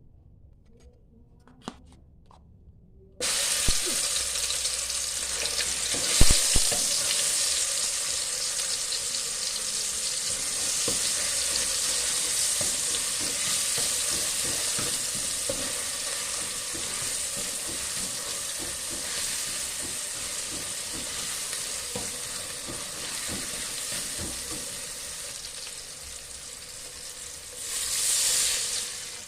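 Ground shallot-and-garlic spice paste hitting hot oil in a pan about three seconds in and sizzling steadily while a spatula stirs it, with small knocks against the pan. The sizzle eases a little over time and swells briefly near the end.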